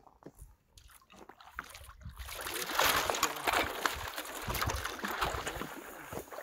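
Water splashing and sloshing as a hooked pike thrashes at the surface while it is hauled in on a hand line. The splashing starts about two seconds in and keeps up.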